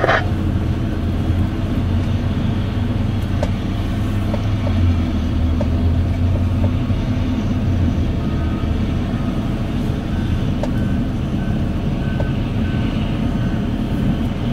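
Diesel engines of heavy mining machines running steadily: a Hitachi EX1900 hydraulic excavator loading a haul truck with a tracked dozer working beside it. From about eight seconds in a reversing alarm beeps at a regular pace, the sign of a machine backing up.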